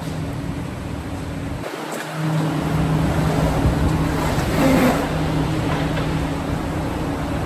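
Assembly-plant floor noise: a steady machinery hum over a wash of noise. It changes abruptly just under two seconds in and runs on louder after that.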